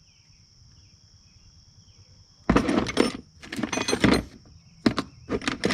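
Hand tools clattering in a series of bursts, starting about halfway through, as someone rummages through them looking for a 10 mm socket. A steady high drone of insects runs underneath.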